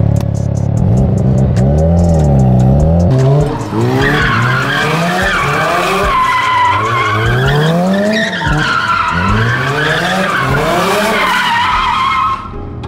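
Mazda RX-7 FC's turbocharged 13B rotary engine revving up and down hard as the car drifts, with the tyres squealing from about four seconds in until near the end.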